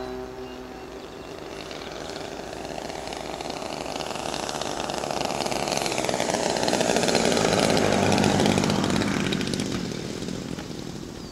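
Twin DLE 30 single-cylinder two-stroke petrol engines of a large RC twin-engine plane running in flight, with a buzzing, chainsaw-like note. It grows louder as the plane comes in low, is loudest about eight seconds in, then dies away.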